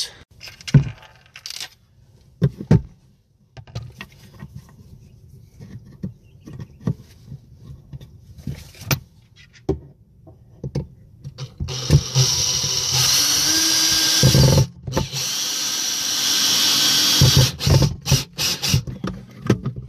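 Handling clicks and knocks, then a power drill driving screws into a wood block, running twice for two to three seconds each, starting about twelve seconds in and again about fifteen seconds in.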